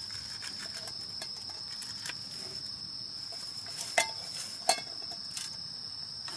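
Insects singing one steady, unbroken high note. A few sharp knocks and clinks stand out, the loudest two about four seconds and four and a half seconds in.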